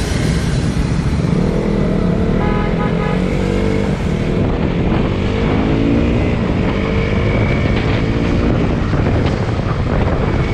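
Motorcycle engine running on the move, its pitch rising and falling with the throttle, under a steady rush of wind on the microphone.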